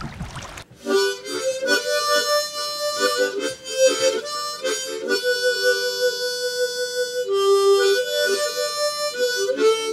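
Instrumental background music, a melody of held notes with chords, starting about half a second in after a brief hiss of running water.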